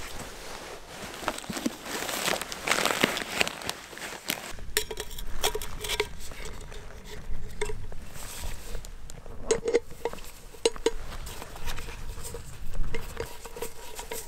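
Rustling and crunching for the first few seconds, then a run of light metallic clinks and knocks as backpacking stove and cook-pot gear is handled.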